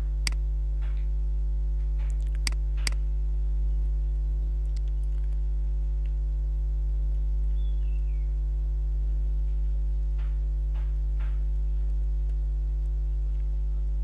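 Steady low electrical hum with evenly spaced overtones runs under the recording. A few scattered sharp clicks from the computer's keyboard and mouse sound over it: several in the first three seconds and a small cluster about ten seconds in.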